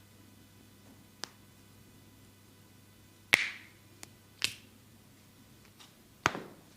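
Sharp hand strikes on skin in a percussive massage: a light tap about a second in, then three loud, separate slaps spread over the second half, with a small tick between the first two.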